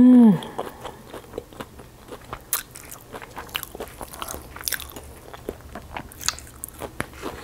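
Close-miked crunching and chewing of crispy fried chicken, with many sharp crackles as the breaded skin is bitten and pulled apart. It opens with a brief, loud 'mmm' hum that falls in pitch.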